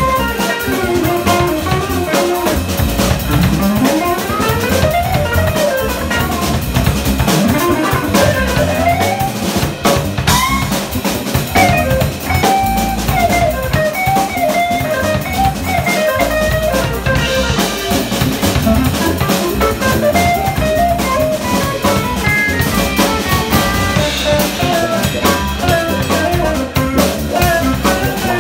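Live band playing: a hollow-body electric guitar carries a gliding melodic line over electric bass and a drum kit.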